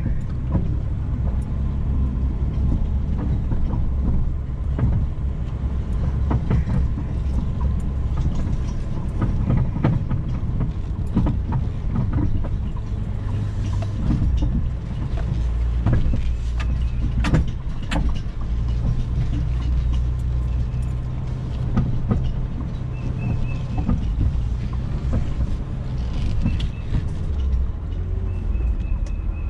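Jeep Cherokee driving slowly while towing a log arch loaded with a black oak log of about 2000 lb. A steady low engine drone runs throughout, with frequent irregular knocks and rattles.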